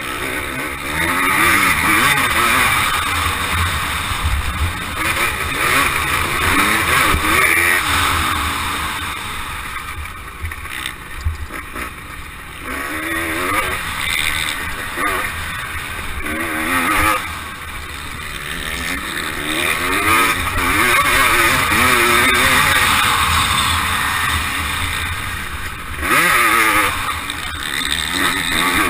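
Motocross dirt bike engine being ridden hard around a dirt track, its revs climbing and falling again and again through the gears, and easing off for a few seconds around the middle. Heard from the rider's own helmet.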